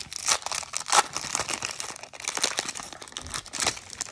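Foil wrapper of a baseball card pack crinkling and tearing as it is pulled open by hand: a dense run of quick, irregular crackles.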